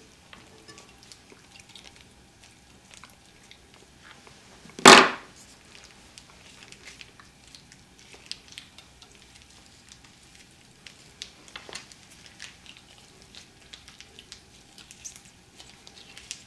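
Plastic pouch of thawed cream-style corn crinkling and squelching as it is squeezed out into a saucepan, with faint scattered rustles and ticks. One sharp knock about five seconds in.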